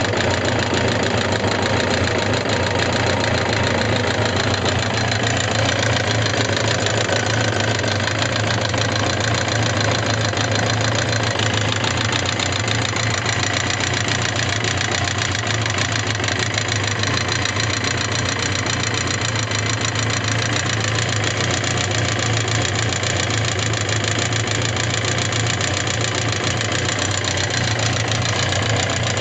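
Suzuki GSX750S Katana's inline-four engine running steadily with a fast, even カタカタ/カチカチ ticking rattle. The noise is of unknown cause: it has outlasted new rocker arms, camshaft and cam-chain parts and repeated tappet-clearance adjustment.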